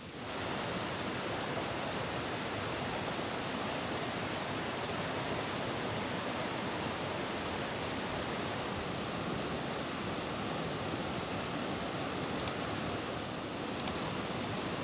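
Steady rushing of running water, a stream or river, with two light high clicks near the end.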